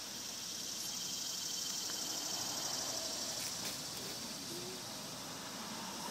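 Steady high-pitched chorus of insects in the trees, a continuous shrill drone with a fine pulsing texture and a faint click or two.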